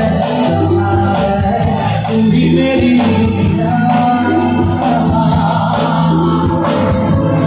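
Live band music played loud through a PA system: guitars and keyboards over sustained bass notes, with percussion ticking out a steady beat.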